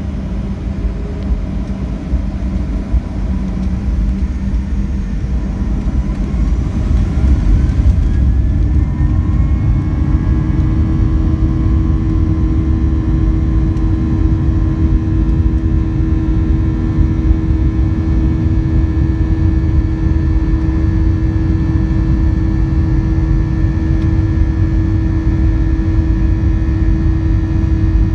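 Boeing 737-700's CFM56-7B turbofan engine heard from inside the cabin over the wing: a heavy low rumble with a whine that rises in pitch about six to nine seconds in, as the engine spools up, then holds steady and louder.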